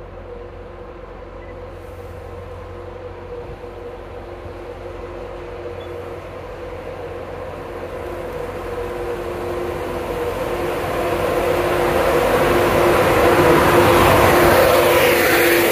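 A passenger train approaching and growing steadily louder, with a steady pitched hum over the rising rumble and hiss of wheels on rails. It is loudest near the end.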